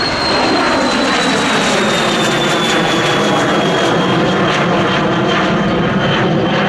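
Swiss Air Force Cessna 560 Citation business jet's twin turbofan engines at takeoff power as it heads into the air. The sound is loud and steady, with a high whine that slowly falls in pitch.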